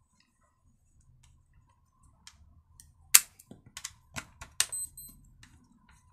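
Sharp clicks and knocks of a hex key and the plastic recoil starter housing being handled while the starter is unscrewed from a chainsaw, about eight in a few seconds, the loudest a little after three seconds in.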